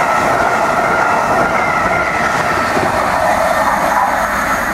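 Loco-hauled passenger coaches rushing past at speed: a steady, loud rush of steel wheels on rail, with a faint high steady tone running through it.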